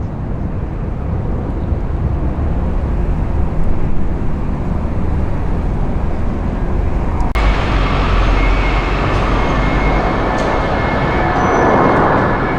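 Jet airliner engines at takeoff thrust: a steady low rumble. About seven seconds in it switches abruptly to a closer, fuller jet noise with a steady high-pitched engine whine that swells near the end.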